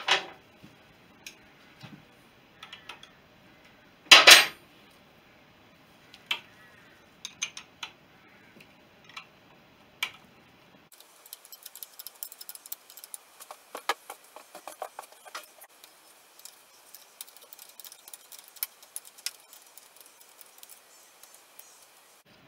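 Metal hand tools and engine parts clinking and tapping during workshop dismantling of a BSA B31 engine. Scattered light clicks, one loud metallic clank about four seconds in, and from about halfway a dense run of rapid, irregular small clinks.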